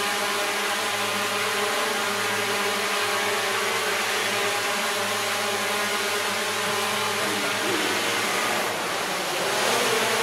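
Hexacopter drone's six electric motors and propellers running in flight, a steady many-toned buzzing whine. Near the end the tones waver and the rush of air grows a little louder as the drone moves.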